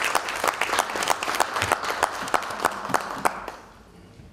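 Audience applauding, many hands clapping together, dying away about three and a half seconds in.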